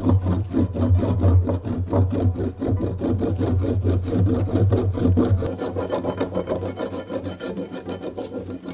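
Kitchen knife scraping the skin off a burdock root on a cutting board: quick, rhythmic scraping strokes, several a second.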